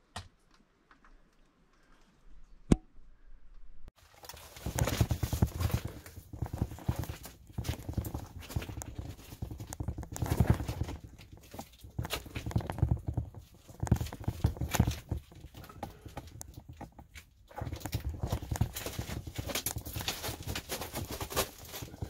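Footsteps crunching and clattering over loose stones and rubble, starting about four seconds in after a single sharp click, with uneven surges of denser clatter.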